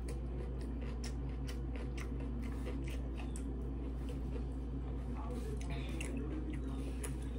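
Close-up eating sounds: chewing, with a fork clicking and scraping on a plate in short, irregular taps, over a steady low hum.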